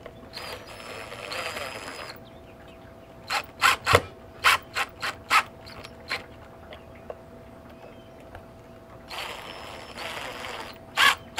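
A Ryobi cordless drill runs twice, driving screws into wood, with a steady motor whine: once from about half a second in for under two seconds, and again near nine seconds in. In between comes a string of about seven sharp clicks and knocks.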